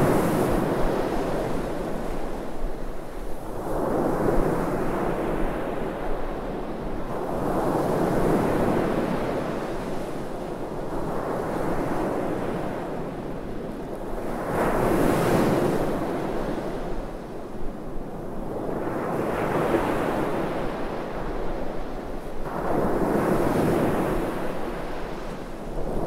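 Sea waves breaking on a sandy beach and washing up the shore. The surf swells and fades every four to seven seconds, about six times in all.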